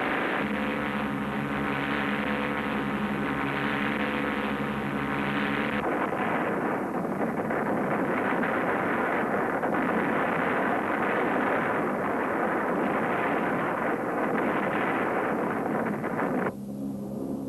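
Steady drone of the Hercules gunship's Allison T56 turboprop engines heard inside the fuselage, a hum of several tones under a rushing noise. About six seconds in it cuts abruptly to a loud, even noise without the hum that lasts about ten seconds. The engine drone returns just before the end.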